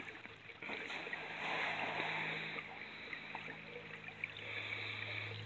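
Shallow creek water running and trickling around a gravel sifter screen, with a few faint clicks of pebbles and a low steady hum underneath.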